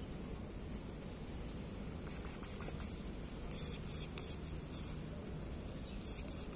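Cricket chirping in groups of short, very high pulses, in three bursts about two, three and a half and six seconds in, over a steady background hiss.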